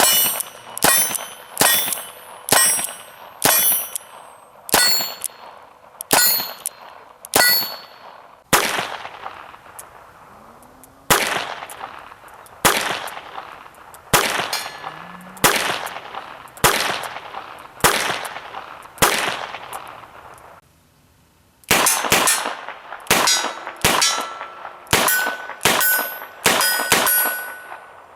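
A .22 LR revolver (Smith & Wesson Model 317 kit gun) firing shot after shot at steel targets. Each sharp crack is followed by the clang and ring of steel being hit. The shots come about one a second, stop briefly about twenty seconds in, then resume in a quicker string.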